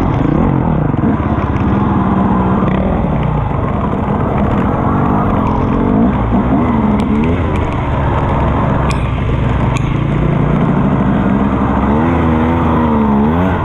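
KTM EXC 250 enduro motorcycle engine running hard while ridden, its revs rising and falling again and again as the throttle is worked.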